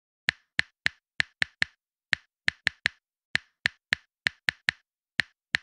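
A string of sharp, dry clicks, about eighteen in uneven clusters at roughly three a second, with dead silence between them: a click sound effect laid over the end card.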